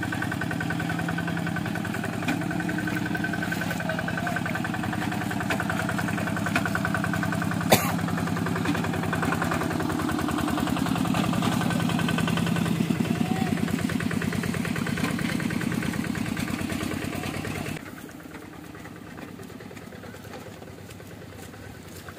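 Two-wheel hand tractor's single-cylinder diesel engine running steadily as it plows a flooded rice paddy, with one sharp knock about eight seconds in. The engine sound cuts off abruptly a few seconds before the end, leaving a quieter background.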